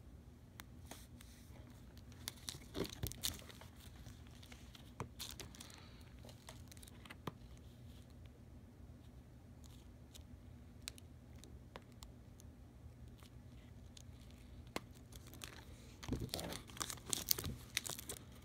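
Copper foil tape being peeled and pressed onto a plastic PDLC smart-film sheet: faint scattered crinkling and tearing, busiest about three seconds in and again near the end.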